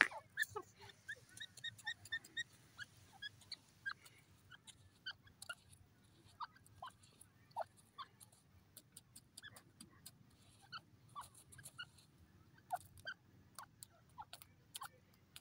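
Grey francolin foraging in loose sandy soil: faint, scattered short chirps and sharp little ticks as it pecks and flicks sand.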